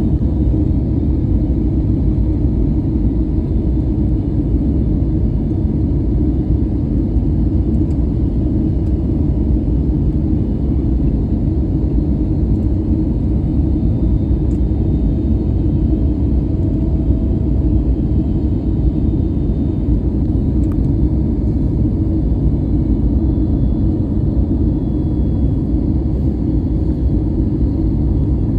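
Steady low rumble of an airliner's engines and rushing air, heard inside the passenger cabin during the landing descent.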